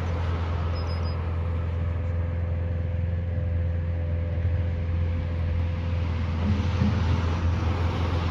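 A steady low rumble with a faint, steady hum a little higher in pitch.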